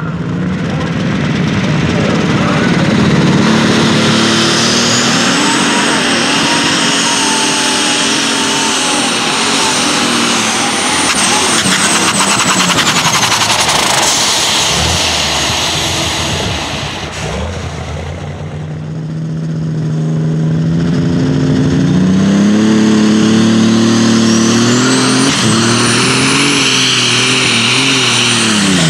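Super stock pulling-tractor engines running at full power with a high turbocharger whistle over the engine note. One tractor pulls hard for about the first two-thirds and fades away. A second then revs up, its engine note and turbo whine climbing steeply near the end.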